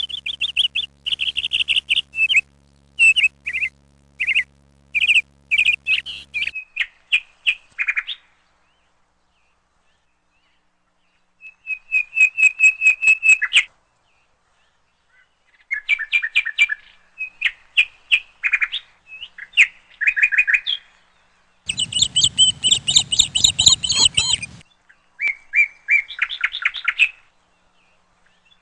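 A small bird chirping in quick runs of short, high notes, with pauses between runs and a few seconds of silence about a third of the way in. A low steady hum sits under the chirps at first and stops after about six seconds.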